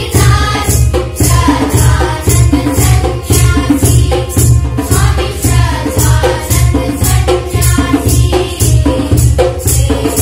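Children singing a Hindi song together over a backing track with a steady beat and jingling, shaker-like percussion.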